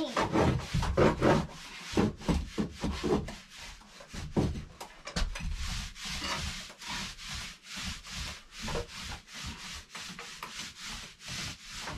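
Wood stain being scrubbed by hand onto a rough-sawn board wall: a rhythmic rubbing of the applicator against the wood, in short back-and-forth strokes about three a second.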